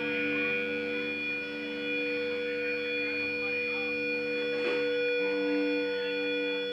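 Amplified electric guitar and bass holding several steady ringing tones, like amp feedback. A new lower tone comes in about five seconds in, and there is a faint click a little before it.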